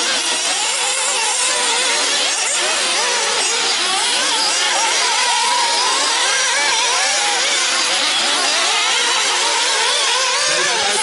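Several nitro RC buggies' small two-stroke glow engines whining at high revs, overlapping, their pitches wavering up and down as they throttle on and off around the track.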